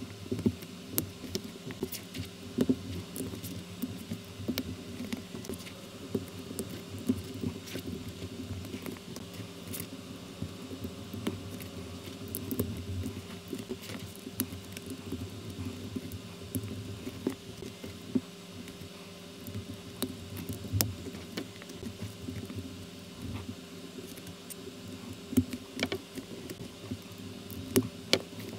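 Plastic LEGO-compatible bricks clicking and rattling as they are pressed together and handled: many irregular sharp clicks over a steady low hum.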